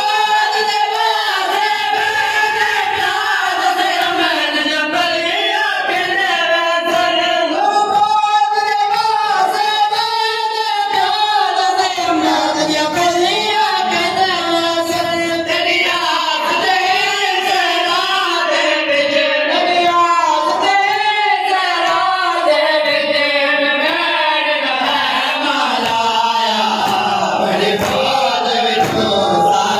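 Many male voices chanting a nauha, a Shia Muharram lament, in unison over a steady rhythm of chest-beating (matam) thuds.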